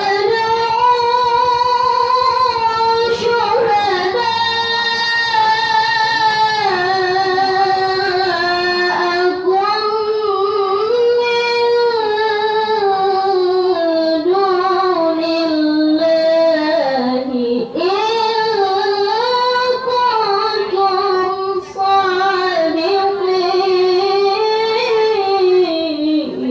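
A girl's voice reciting the Qur'an in the melodic tilawah style, amplified through a microphone: long held notes with ornamented glides up and down, broken by a few short breaths.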